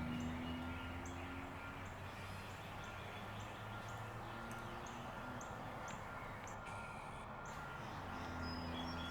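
Outdoor ambience: a bird giving short high chirps about twice a second over a low steady hum.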